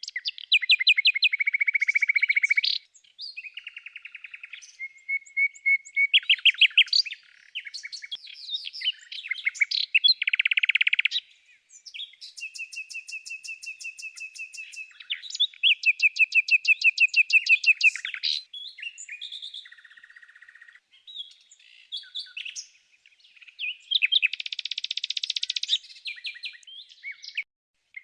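Songbird singing: a long run of fast trills and rapidly repeated chirping notes at changing pitches, phrase after phrase with short breaks between them.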